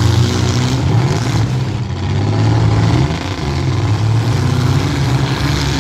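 Several demolition derby compact cars' engines running and revving together, a loud, steady drone that rises and falls in pitch.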